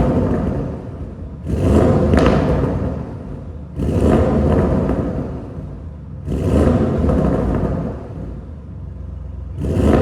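Audi RS6's twin-turbo 4.0 V8, fitted with catless downpipes and an aftermarket exhaust, revved in repeated throttle blips. Each rev rises suddenly and dies away, about every two and a half seconds, four times.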